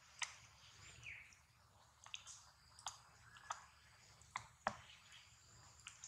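Near silence: about seven faint, sharp clicks scattered through it, the loudest about two-thirds of the way in, over a faint steady high-pitched hum.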